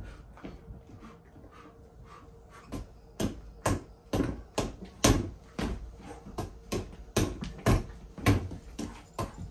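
Punches landing on a free-standing kids' reflex bag, an inflated ball on a spring-mounted stem. Sharp thuds come irregularly, about twice a second, starting about three seconds in.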